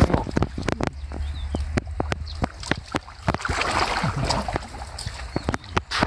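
Water sloshing and splashing around a person wading deep in a muddy canal, with scattered sharp clicks and a couple of louder splashes near the middle and end.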